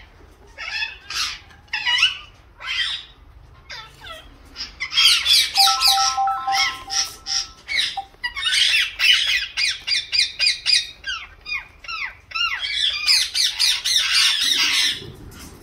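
Indian ringneck parakeets squawking in short, harsh calls, scattered at first and then in fast runs from about five seconds in and again near the end.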